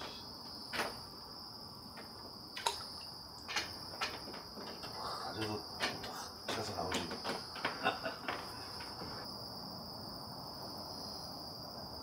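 Insects trilling in a steady, high-pitched chorus, with scattered clicks and knocks during the first eight seconds or so.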